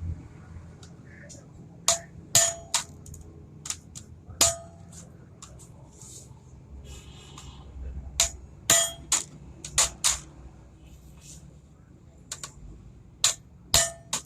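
Sharp metallic clinks and clangs of metal parts and tools being handled, in three irregular clusters, some strokes ringing briefly.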